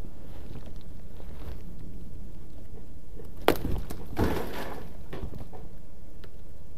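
Fabric rubbing over a body-worn camera's microphone as the wearer moves. A single sharp knock comes about three and a half seconds in, followed by a short scraping rustle.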